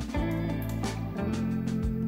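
Lo-fi background music: held notes with drum hits.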